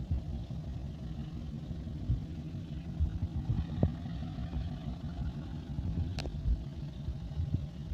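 Diesel engine of a CC201 diesel-electric locomotive running with a steady low rumble, with two brief sharp ticks about four and six seconds in.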